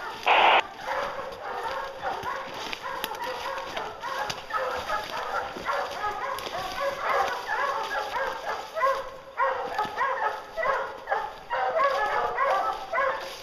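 A pack of English hounds baying on a black bear, many overlapping calls several a second, with a brief lull about two-thirds of the way through. A loud burst of noise comes right at the start.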